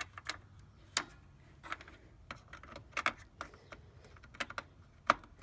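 Scattered light plastic clicks and rattles of SATA connectors and cables being handled and pushed onto a hard drive and disk drive inside a desktop computer case, irregular, with the sharpest click near the end.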